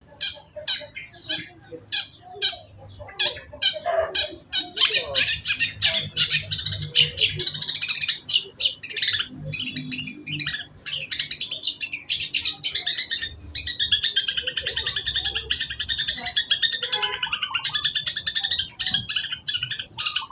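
Long-tailed shrike (cendet) singing: a run of sharp, evenly spaced call notes, then a denser, rapid song that turns into fast continuous chattering in the last third.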